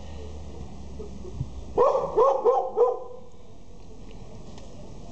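Border collie puppy barking, four quick high yaps in a row about two seconds in.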